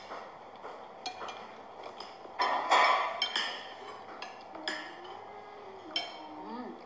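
Metal spoons clinking against ceramic plates and bowls while people eat: a scattering of short, sharp clinks, busiest and loudest about two and a half to three and a half seconds in.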